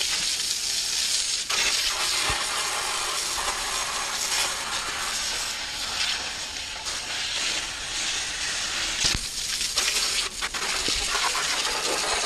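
Garden hose with a fine-tip spray wand jetting water onto a DE pool filter's grid assembly: a steady, strong spray with water spattering off the grids, rinsing the old DE off.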